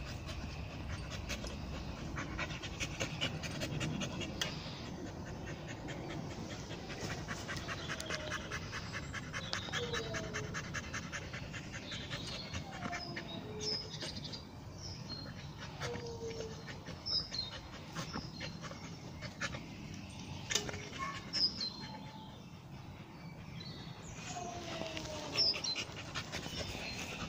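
A dog panting as it rolls on its back in the grass, the grass rustling under it in quick, dense scrapes.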